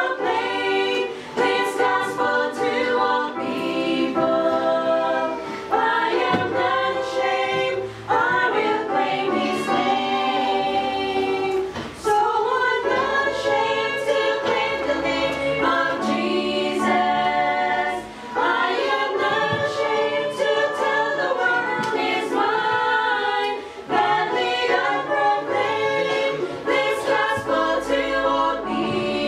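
A small women's choir singing a church song together, in phrases with brief breaths between them.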